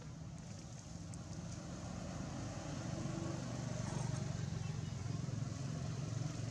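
A motor vehicle's engine running, with a low hum that grows louder over the first few seconds and then holds steady.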